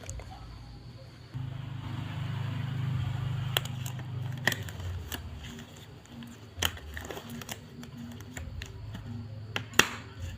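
Medical equipment being handled and set down: irregular clicks and knocks, with a low rumble for a few seconds near the start.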